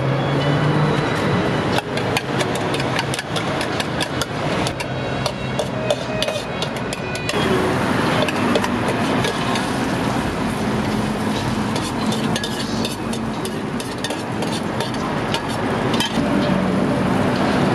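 Rapid metal clinking of a utensil beating egg mixture inside a stainless steel pitcher, followed from about seven seconds in by egg batter sizzling on a hot greased flat-top griddle, with more scattered metal clinks near the end.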